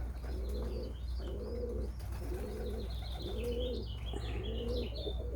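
Domestic pigeons cooing in a steady run of repeated low coos, a little under one a second, with thin high chirps above them and a faint low hum underneath.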